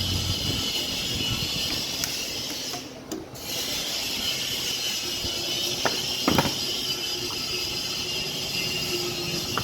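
Steering-rack parts being handled during the repair: a few sharp clicks about six seconds in over a steady background hiss, with a brief dip in level about three seconds in.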